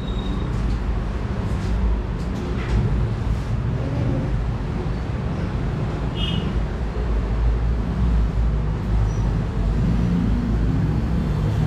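Steady low background rumble, with a few faint clicks and knocks in the first few seconds and a brief high squeak about six seconds in.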